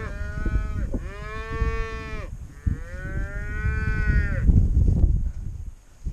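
Cattle mooing: three long calls in a row, the first ending about a second in and the last dying away about four and a half seconds in.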